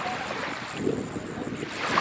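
Waves washing in on the bay shore, swelling about a second in and again near the end, with wind on the microphone.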